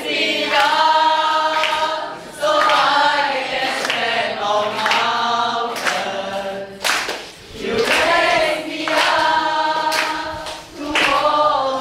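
A group of people singing together unaccompanied, in long held phrases with brief breaks between them.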